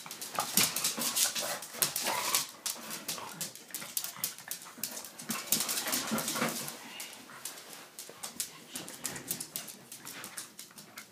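Two pet dogs fussing right at the microphone, with whimpering. A rapid run of clicks and scuffles is loudest in the first few seconds and again around the middle.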